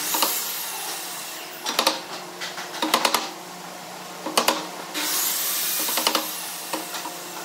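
Wooden mallet striking a chisel as it cuts butterfly-key mortises into a wooden slab: sharp knocks in short groups of a few quick blows, pausing near the end.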